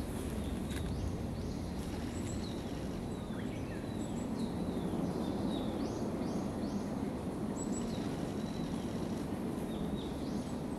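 Birds calling: repeated short, high, thin notes that slide downward, in small runs, over a steady low background rumble.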